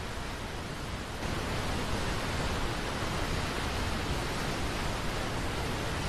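Waterfall rushing: a steady wash of falling water that steps up louder about a second in, then holds even.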